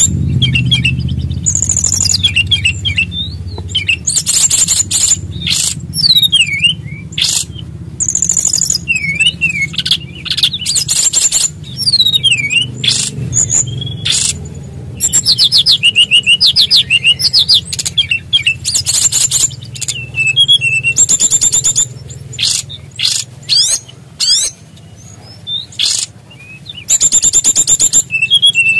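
A sikatan rimba dada coklat (SRDC) songbird singing loudly in a long rolling song, with fast buzzy high trills alternating with looping, gliding whistled notes and short pauses between phrases.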